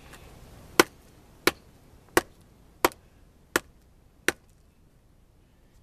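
Six chops of a Schrade SCHF10 survival knife's thick blade biting into a wet log, sharp and evenly spaced, a little over one a second.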